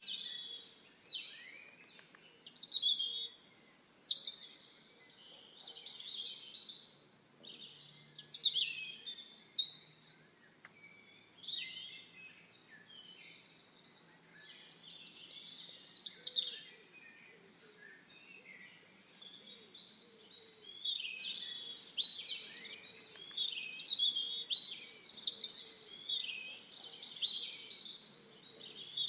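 Songbirds chirping and singing in short bursts of quick, high, sweeping notes with brief pauses, growing busier and more continuous in the second half.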